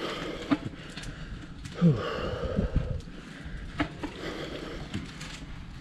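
A person breathing, with short breathy vocal sounds and a few sharp clicks. The loudest is a brief low sound falling in pitch, about two seconds in.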